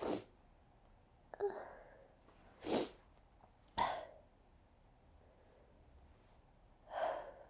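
A woman sneezing over and over with hay fever: a run of short, sudden sneezes and sharp breaths, several within a few seconds, with quiet gaps between.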